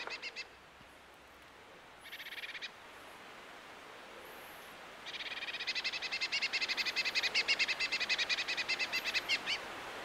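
Blue tit singing: rapid trills of quickly repeated high notes, a short phrase right at the start, another about two seconds in, and a long run from about halfway to near the end.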